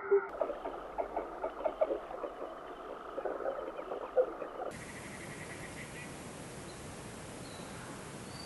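White-faced owl calling in a run of short, low, irregular notes. A little past halfway the sound cuts to a steady rush of running water, with faint high chirps near the end.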